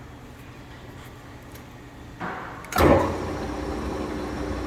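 Mori Seiki engine lathe's spindle starting up with a sudden onset a little under three seconds in, then running steadily at a low spindle speed of about 62 RPM.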